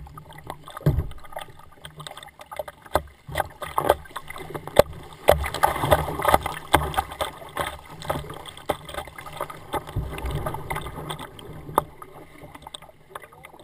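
Kayak paddling through choppy river water: paddle blades splashing and water rushing and slapping against the hull close by, with many short splashes. It is loudest in the middle as the boat runs through the rough water.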